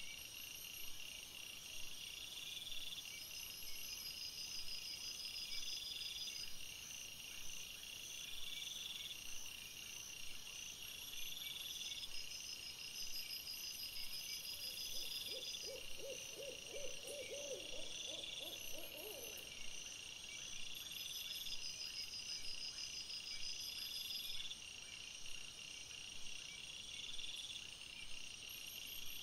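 Insects chirping at night in a steady high-pitched chorus that pulses every second or two. About halfway through, a low, rapid, trembling animal call sounds for about four seconds.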